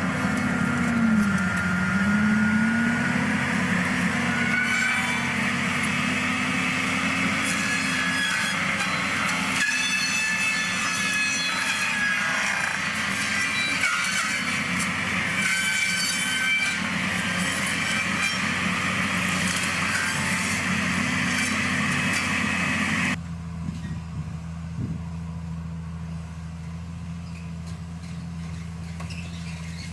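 Heavy machinery running, an engine with whining tones that waver and shift in pitch. About 23 seconds in it changes abruptly to a quieter, steadier low engine hum.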